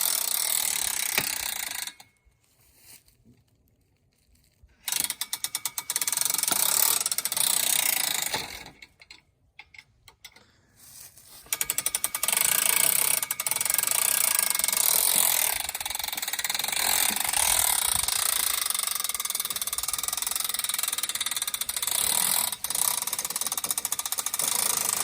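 Power drill driving the winch of an ATV log hitch, the winch's ratchet clicking as it reels the strap in under the load of a log. It runs in three stretches, stopping about two seconds in and again about nine seconds in, then running on steadily.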